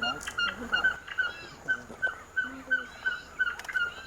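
A bird calling a steady series of short, evenly spaced nasal notes, about three a second.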